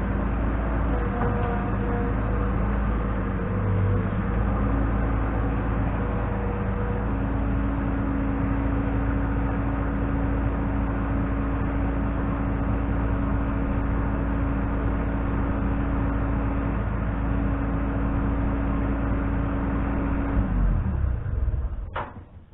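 New Holland LX665 skid steer loader's diesel engine running steadily as it works, its pitch shifting a little early on. Near the end the engine is shut off and runs down, followed by a single sharp click.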